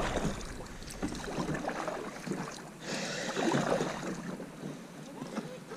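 Kayak paddling: the paddle dipping and pulling through the water, with light splashes and drips, a little louder about three seconds in.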